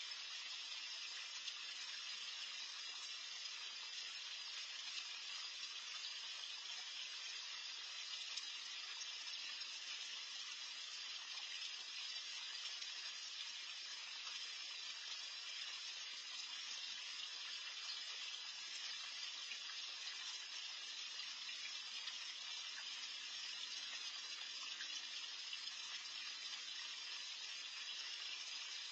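Steady splashing of water churned up in a small garden pond, heard through a Nest security camera's microphone.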